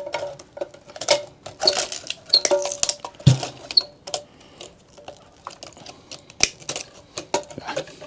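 Metal parts and tools clinking and clattering while an amplifier is being taken apart for scrap, with one heavier thump about three seconds in.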